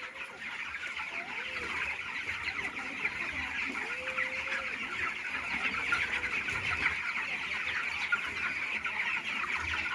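A large flock of chickens in a poultry shed chirping and clucking together: a dense, steady chatter of many overlapping high calls, with a few lower calls rising and falling over it.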